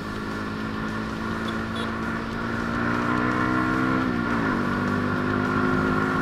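SYM Bonus 110cc motorcycle's single-cylinder four-stroke engine running on the move, its pitch climbing slowly, then dropping about four seconds in and holding steady after that.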